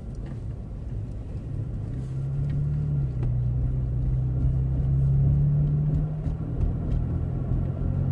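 Car engine and road rumble heard from inside the moving car's cabin: a steady low drone that grows louder about two seconds in, with a steady engine hum on top.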